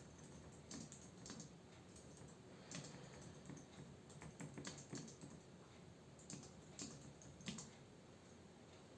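Quiet typing on a computer keyboard: irregular keystrokes in short runs, stopping about a second before the end.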